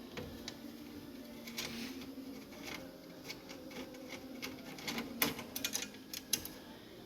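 Light clicks and taps of small metal hardware being handled while the bracket's screws are worked loose, coming thicker about five seconds in, over a faint steady hum.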